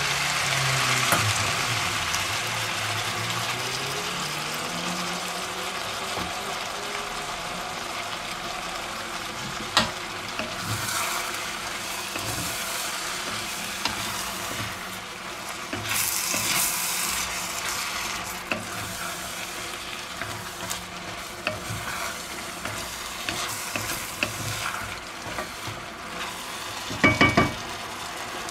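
Broth poured into a hot pot of browned minced meat and vegetables, sizzling loudly at first and gradually dying down. A spatula then stirs and scrapes through the mixture, and a quick run of knocks sounds near the end.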